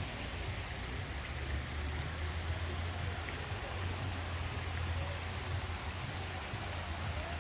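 Car driving: a steady low rumble with road hiss.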